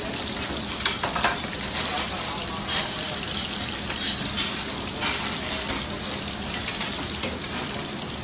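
Spaghetti sizzling in a sauté pan over a high gas flame, stirred with metal tongs that click against the pan now and then.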